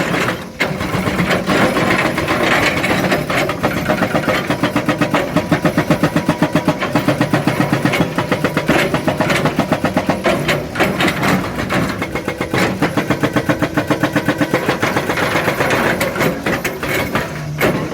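Excavator at work: its diesel engine runs under load, with a rapid, regular pounding of about six to seven strokes a second through the middle stretch.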